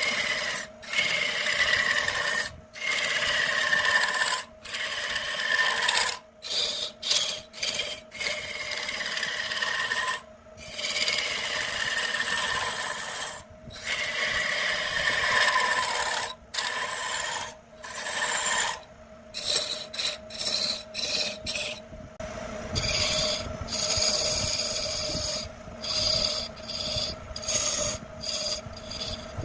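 Lathe tool cutting into spinning wood in repeated passes broken by short pauses, each pass with a faint falling whine, over a steady hum. In the last third the cuts become short and quick.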